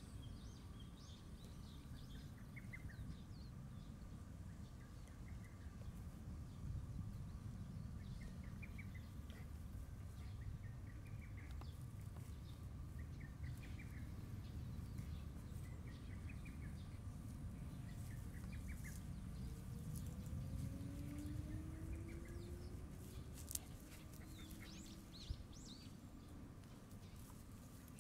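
Outdoor ambience: a bird repeats a short chirping call about every second and a half, with higher chirps from other birds, over a low steady rumble. About two-thirds of the way through there are two faint rising whines.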